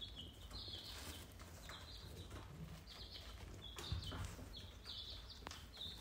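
Indian ringneck parrot giving a run of soft, short high chirps while eating, with a few sharp clicks of its beak on the food.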